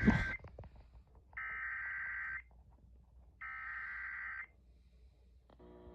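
Emergency Alert System SAME header: three bursts of warbling data-modem tones, each about a second long with a second's gap between them, encoding a National Weather Service tornado warning. A sharp pop sounds at the very start as the broadcast audio cuts over, and a buzzy alert tone begins just before the end.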